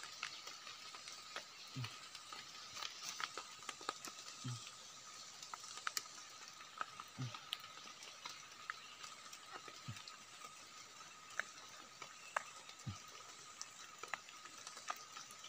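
Faint scraping and small clicks of a knife trimming soil off the stems of freshly picked wild mushrooms, over a steady faint high tone, with a few soft low thumps.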